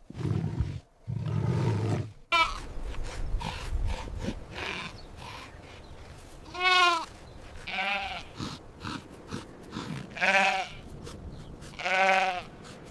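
Sheep bleating several times, wavering calls, the loudest in the second half, after a low rumbling sound in the first two seconds.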